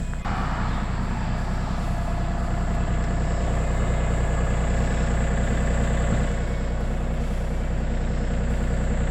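Compact tractor-backhoe engine idling steadily, with a faint click about a quarter second in.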